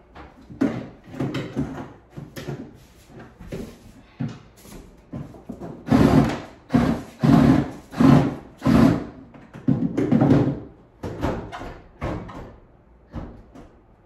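Knocks and thumps of the over-the-range microwave bumping against the wooden kitchen cabinet as it is pushed and fitted into place, with a run of loud thumps, about two a second, midway.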